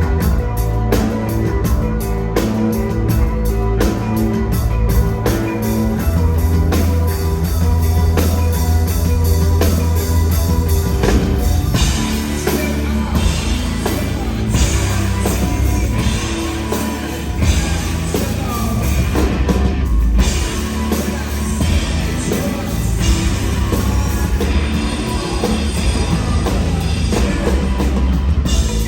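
Live rock band playing loud through a venue PA: heavy sustained bass, drum kit and electric guitar, with singing. The texture shifts about twelve seconds in as brighter guitar and cymbals come forward.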